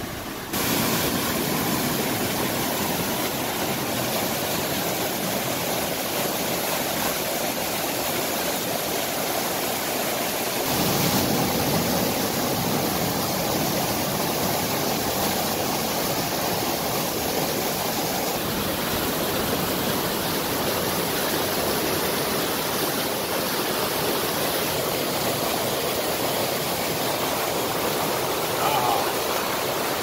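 Water of a mountain stream rushing over small waterfalls into rock pools: a steady, even rush that comes in abruptly about half a second in and grows fuller about a third of the way through.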